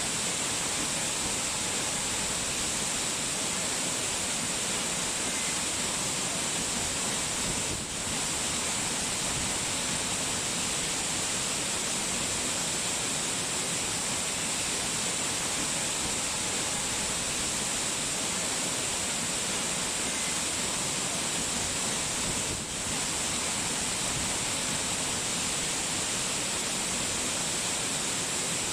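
Steady, even rush of falling water, an unbroken hiss strongest in the high range, dipping briefly twice.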